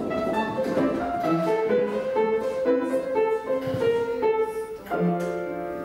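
Piano accompaniment for a ballet exercise: a melody of short notes, a brief break just before five seconds in, then a held chord near the end.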